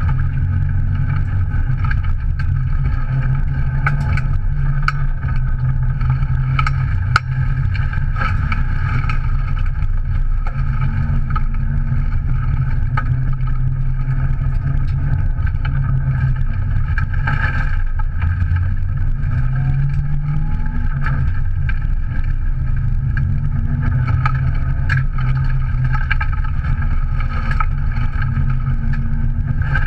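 Subaru Impreza's 1.8-litre naturally aspirated flat-four engine, heard from inside the cabin, driven hard on a dirt stage; its pitch climbs and drops with throttle and gear changes. Scattered sharp clicks run through it, with one louder knock about seven seconds in.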